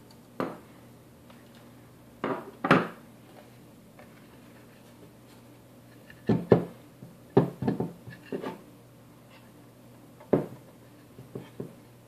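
Knocks and clatter of a finned metal mini PC case being handled, turned over and set down on a wooden tabletop, with a screwdriver laid down. About a dozen separate knocks come in small clusters, the loudest two about two and a half and six and a half seconds in.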